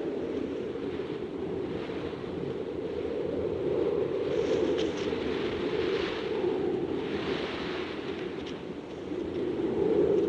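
Strong wind blowing in gusts, a continuous rush that swells and eases every few seconds.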